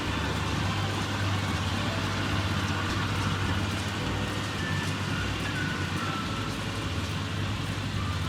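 Tractor engine running steadily while pulling a working CLAAS round baler: a constant low drone under an even rush of machinery noise.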